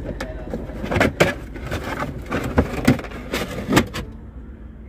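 Rubber trunk mat being lifted and pulled back in a car's trunk. It gives a series of knocks and scrapes against the trunk floor and sill, loudest a little after a second in and again near the end.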